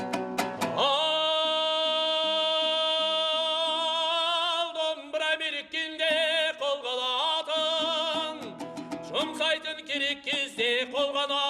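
Kazakh folk singing with dombra: after a few plucked dombra strokes, a voice holds one long note with vibrato, then sings ornamented turns over strummed dombra.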